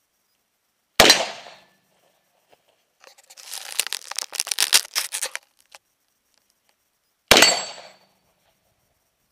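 Two AR-15 rifle shots about six seconds apart, each a single loud crack that dies away in about half a second. Between them comes a couple of seconds of dense crackling noise.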